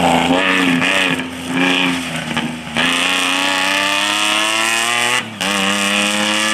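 Cross-country rally pickup racing past under hard throttle, its engine revving up and down, then climbing in one long rising rev. The rev breaks off briefly near the end, as at a gear change, and climbs again.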